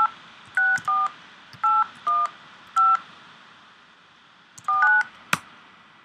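Softphone keypad dialing tones (DTMF) as a phone number is typed in: short two-tone beeps, one per digit, in quick runs with a pause in the middle. Key clicks come between the beeps, and a sharp click sounds near the end as the call is placed.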